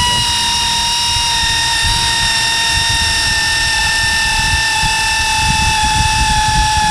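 Pneumatic air gun running continuously with a steady high whine that sags slightly in pitch, spinning out the starter's top mounting bolt.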